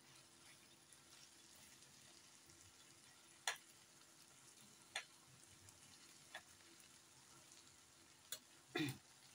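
Faint sizzle of diced potatoes simmering in oil and spiced yogurt liquid in a nonstick frying pan on low heat. A few short light clicks from a knife poked into the potatoes against the pan, with a slightly louder knock near the end.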